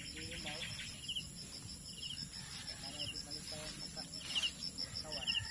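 Insects calling in a steady, fast-pulsing high chirr, with a shorter trill repeating about once a second.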